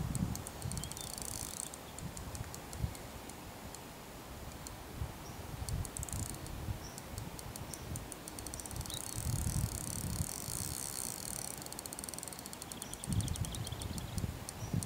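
Fishing reel clicking in quick bursts of fine ticks as a hooked tench is played on a bent rod, with wind buffeting the microphone underneath.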